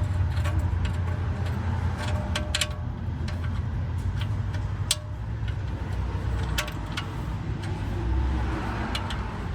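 A few sharp, separate clicks over a steady low rumble, made while an oil drain plug with a new crush washer is threaded by hand into the oil pan.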